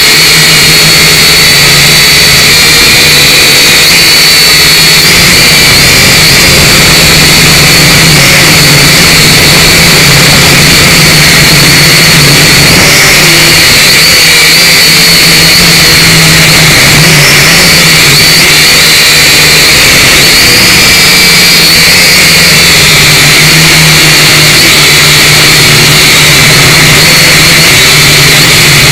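Syma X5C quadcopter's brushed motors and propellers whining steadily in flight, picked up loud and close by the drone's own onboard camera. The pitch wavers a little as the throttle shifts.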